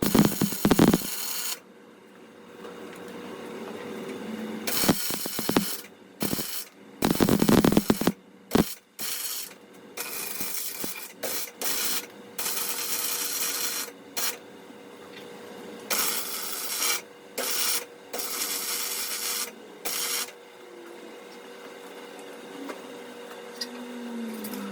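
Welding arc crackling in a string of short bursts, a second or two each, as beads are laid on a steel frame, over a steady faint hum.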